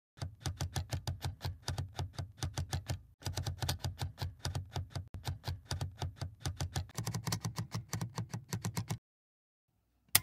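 Typing sound effect: rapid key clicks, about eight a second, with a short break about three seconds in, stopping shortly before the end. Just before the end comes one louder sharp click with a brief ringing tone.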